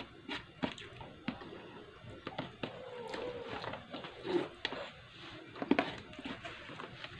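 Close-up eating sounds: chewing and mouth smacking, with fingers pressing and gathering rice on a plate, heard as a string of short clicks and taps.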